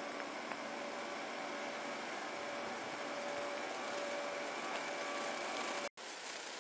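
Steady static hiss from a camera's built-in microphone, with faint steady tones running through it; it drops out for an instant near the end and comes straight back. An unexplained microphone fault, which the owner says has never occurred with this camera before.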